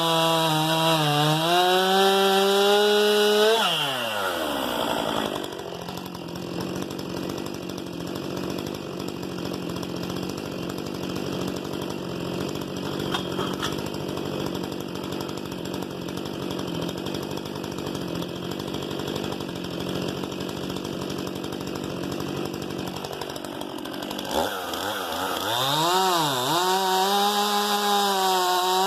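STIHL MS 261 C-M two-stroke chainsaw running at high revs for the first few seconds, then dropping to a lower, quieter steady run for about twenty seconds, and revving up again near the end with a brief dip in pitch.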